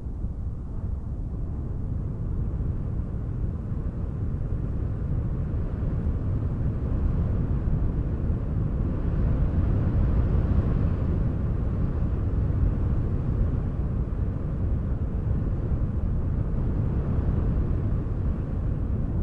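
Wind buffeting the microphone as a steady, flickering low rumble, swelling slightly around the middle.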